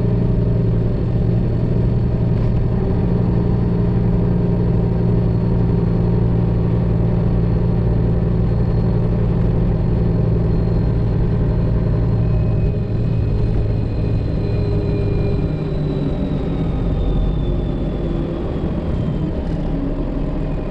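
Freightliner Classic XL semi truck's Detroit Diesel 12.7-litre engine running steadily on the road. About sixteen seconds in, the engine note drops lower, and a faint high whine falls in pitch.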